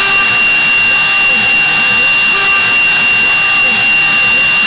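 Mini CNC router spindle running with a steady high whine while its end mill cuts carbon steel plate, over a constant hissing cutting noise. Beneath it, a lower sound swoops up and down in pitch about twice a second.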